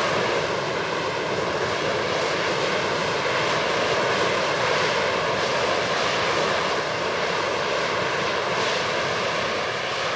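Harrier jump jet's Pegasus turbofan hovering: steady, dense jet-engine noise with faint steady whining tones over it.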